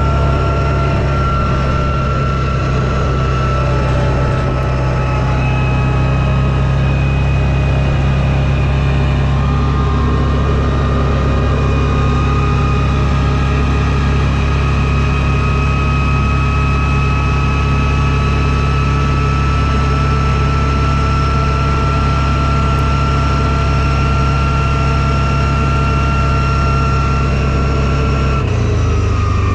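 Vehicle engine and drivetrain running steadily while driving: a low, even drone with a thin high whine over it. Near the end the drone shifts lower and the whine glides down as the vehicle slows.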